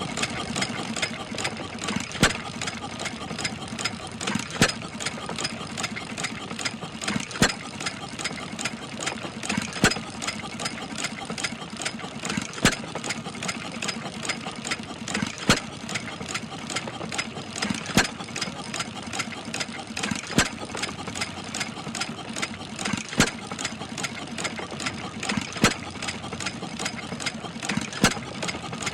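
Small gasoline engine of a portable water pump running steadily, with a sharp knock about every two and a half seconds.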